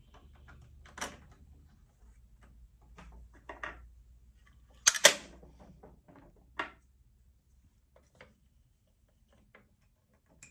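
Hands working a Singer sewing machine while rethreading it: scattered small clicks and knocks of its parts, with a sharp double clack about five seconds in as the hinged top cover is lowered, then a few faint ticks.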